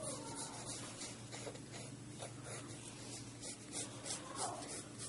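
Pencil scratching on paper in quick, repeated sketching strokes, a light hiss with each stroke several times a second.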